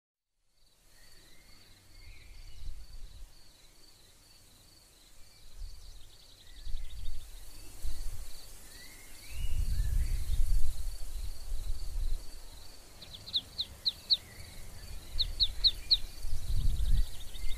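Outdoor nature ambience: birds chirping in quick runs of sharp falling chirps in the second half, over a steady high-pitched pulsing, like an insect, at two or three pulses a second. Low rumbling swells rise and fall underneath and are the loudest part.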